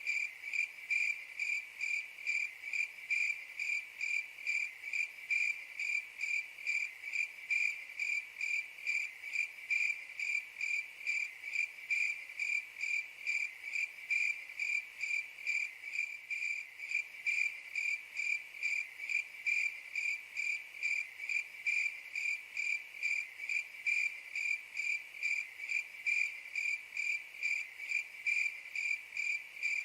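Cricket chirping in a steady, even rhythm of about two to three high-pitched chirps a second.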